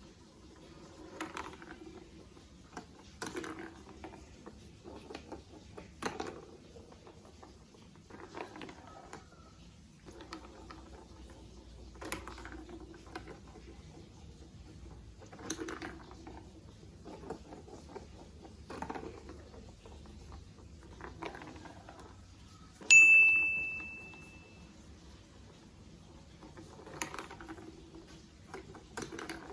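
Plastic marble run building blocks being handled and clicked together, a short clack or clatter every second or two. About three-quarters of the way through, a single bright ding, the loudest sound, rings out and fades over about a second and a half.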